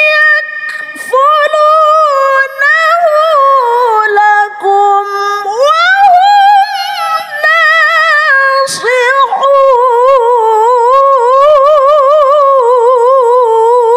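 A woman reciting the Quran in the melodic tilawah style, drawing out long ornamented notes with a wide vibrato, broken by a few short breaths between phrases.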